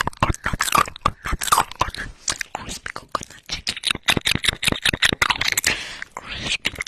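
ASMR mouth sounds made with the lips right against a microphone: a fast, irregular stream of wet clicks and crackles.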